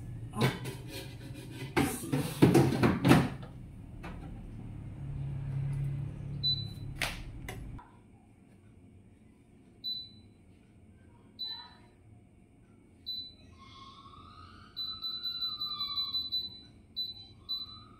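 Clattering knocks as the air fryer basket is loaded and shut, then short electronic beeps from the air fryer's touch panel as its buttons are pressed one by one, with one longer beep near the end.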